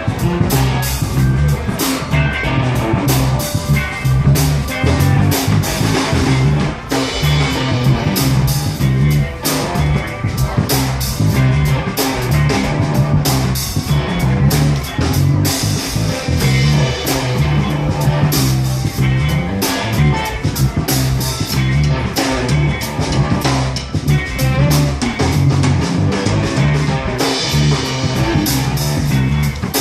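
Live band playing loud blues-rock: electric guitar over a drum kit keeping a steady beat, with a heavy bass line underneath.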